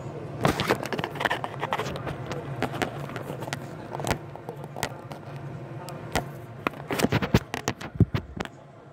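A pen scratching and tapping as it draws on a sheet of paper, heard as irregular clicks, knocks and scrapes over a steady low hum. The clicks come thickest about seven to eight seconds in.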